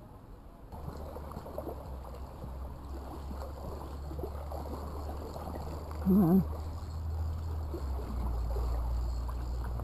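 Shallow creek water running, under a steady low rumble. About six seconds in comes a short, loud voice sound with a wavering pitch.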